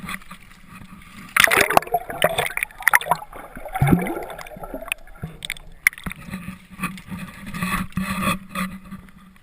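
Water splashing and gurgling close to the microphone, in irregular surges, with sharp knocks and scrapes.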